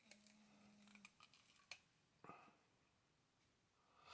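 Near silence, with a few faint light clicks in the first second as small screws and chainsaw parts are picked through by hand on a towel.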